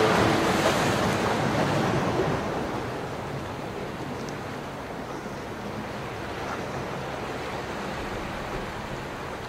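Sea surf: an even wash of waves that eases over the first few seconds and then holds as a steady hiss.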